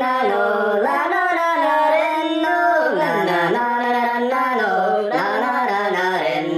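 A man singing a slow melody in long held notes that step up and down in pitch, largely unaccompanied.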